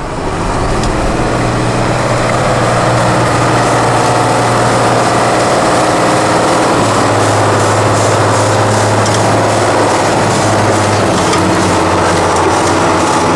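Tatra 8x8 trial truck's diesel engine running steadily under load as the truck crawls over rough ground, its pitch shifting slightly about seven and again about eleven seconds in.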